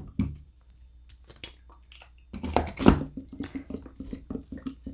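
A humidifier's water tank being handled and fitted into its base: a knock at the start, then from about two and a half seconds a run of irregular knocks and rattles as it is seated, the loudest a little before three seconds.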